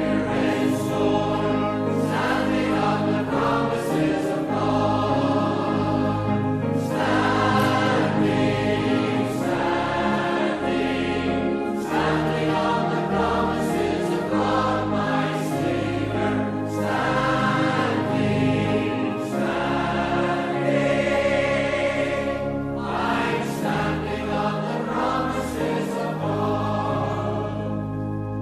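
A choir singing a hymn in sustained phrases over a steady bass line.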